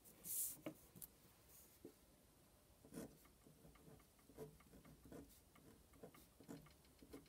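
Faint pen strokes on paper: a short swish about half a second in, then a scatter of light taps and scratches as a pen writes numbers on a lined sheet.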